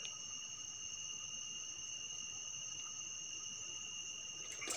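Steady, high-pitched drone of night insects, a chorus of thin, unbroken tones.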